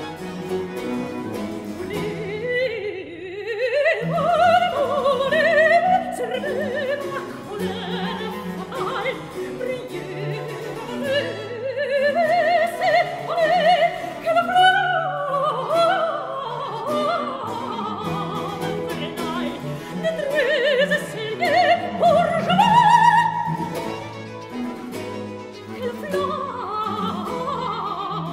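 Soprano singing a baroque cantata with vibrato, her voice rising and falling over an accompaniment of harpsichord, viola da gamba and baroque violin.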